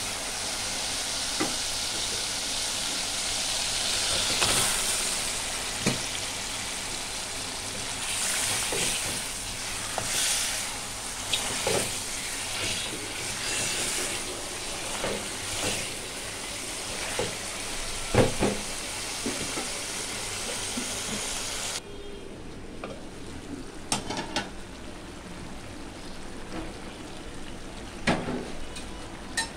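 Spice paste and oil sizzling in an aluminium pot, with knocks and scrapes of a spoon stirring as raw chicken pieces go in. About two-thirds through, the sizzle cuts out abruptly, leaving only scattered clicks and knocks.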